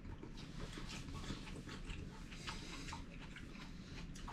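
A person chewing and smacking their lips while eating fried fish, with many small wet mouth clicks close to the microphone.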